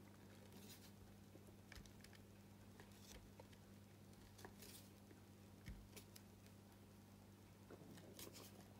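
Faint, scattered clicks and scrapes of a flat screwdriver blade prying at the seam of a plastic retractable dog leash housing, over a low steady hum.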